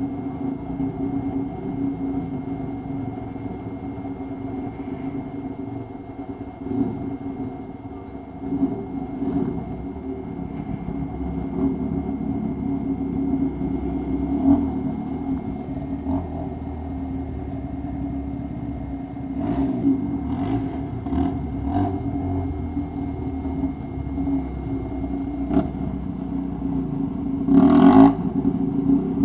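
Sport ATV engine running steadily and revving as it is ridden around, with a few knocks and a louder clatter near the end.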